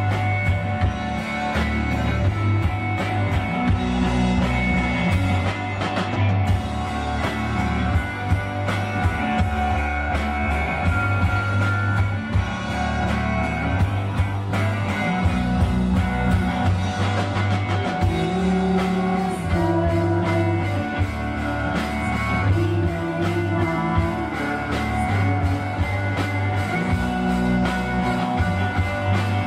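Live rock band playing: drum kit, electric bass and electric guitar together, with a strong bass line moving every second or two under steady drum hits.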